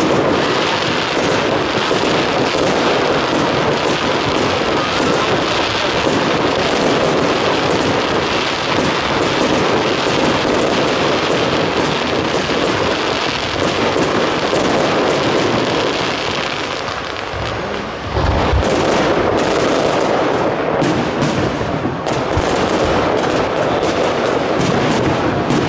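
Fireworks display: aerial shells bursting with a continuous crackle of bangs. About three quarters in there is a deep boom, followed by a denser run of rapid cracks.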